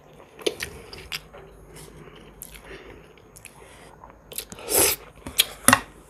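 Close-up eating sounds of a woman chewing instant noodles and pickled ginger: scattered wet mouth clicks, with one longer, louder mouth noise about five seconds in.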